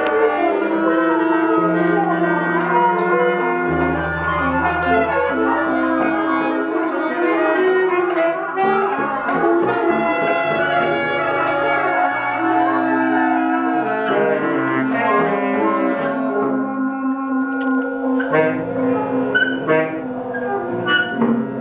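A large ensemble of saxophones, trombone, clarinets and flute improvising free jazz together, many held notes overlapping in a dense, shifting cluster. Sharp percussive hits join in near the end.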